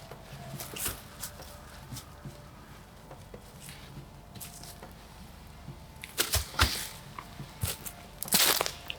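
Dry sticks and twigs being handled and snapped, with rustling on the leaf-littered forest floor. There are a few sharp cracks about six seconds in and a longer, louder rustle near the end.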